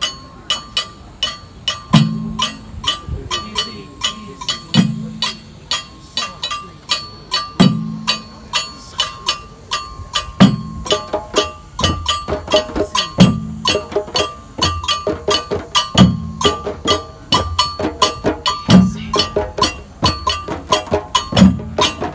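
Hand-played djembe drums in an ensemble rhythm: a quick run of sharp slaps and tones, with a deep bass stroke about every three seconds.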